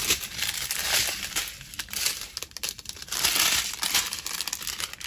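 Small plastic bags of diamond painting drills crinkling as they are handled and sorted, on and off several times.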